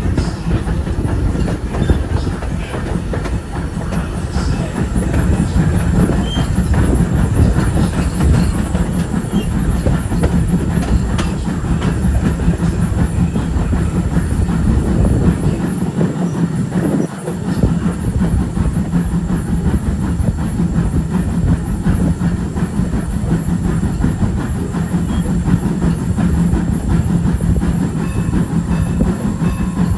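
Passenger train running along the track: a steady rumble with the clickety-clack of the car wheels over rail joints.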